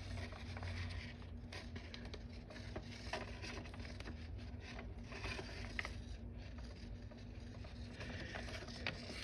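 A sheet of origami paper being handled and creased by hand: faint rustling and scraping with a few soft ticks, over a low steady hum.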